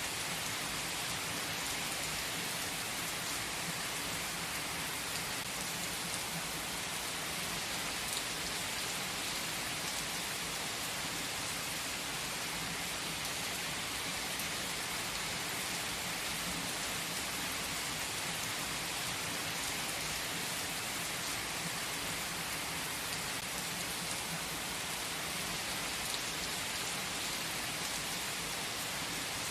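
Steady rain, an even hiss with no breaks and no music.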